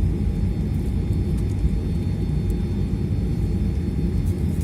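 Steady low rumble of an airliner's running jet engines heard from inside the passenger cabin, with a faint steady whine above it.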